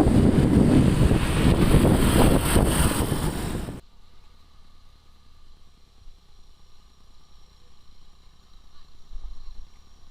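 Wind rushing over the microphone with road noise during a motorbike ride, cutting off abruptly about four seconds in, leaving only faint background noise.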